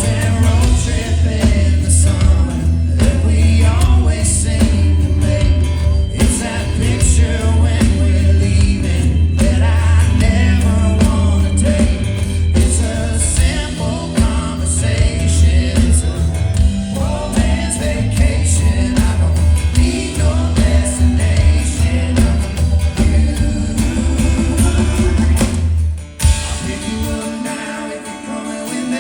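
Live band playing a folk-rock song, with group vocal harmonies over guitars, bass and drums. About 26 seconds in, the bass and drums drop out suddenly and the lighter instruments carry on.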